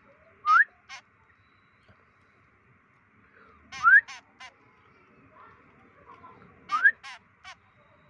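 Young white-breasted woodswallow calling in three short bouts about three seconds apart, each a quick rising note wrapped in harsh rasping notes: a fledgling begging for food.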